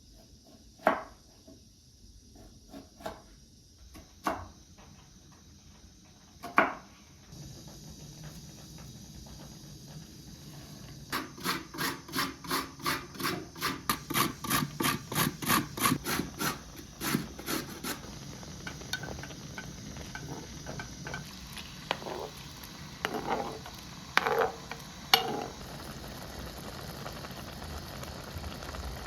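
Food-preparation sounds: a few scattered knocks, then a run of rhythmic rubbing or scraping strokes, about three a second for some seven seconds, over a steady hiss, with a few more knocks near the end.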